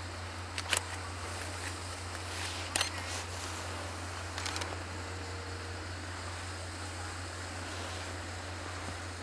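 Camera shutters firing: three quick sets of sharp clicks, paired or in a short cluster, a little under a second in, near three seconds and around four and a half seconds. Beneath them runs a steady low hum and hiss.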